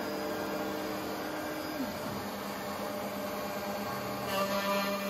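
Makita RT0700C trim router on a Shapeoko 4 XL CNC spinning steadily with a 1/4" flat cutter, just switched on for the job. A second, higher tone glides down and stops about two seconds in, and a brighter, rougher noise joins about four seconds in.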